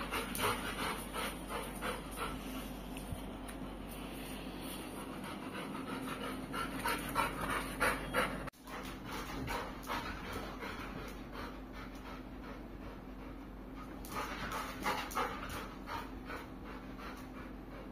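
Labrador retriever panting in quick, even breaths, broken once by a sudden short gap about halfway through.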